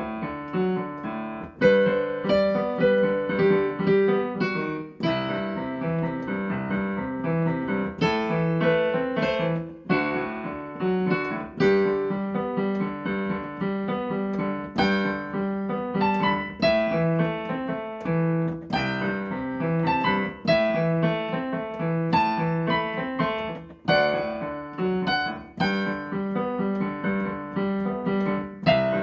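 Piano music played on a keyboard: a melody over steadily repeated low chords, with notes struck every half second or so.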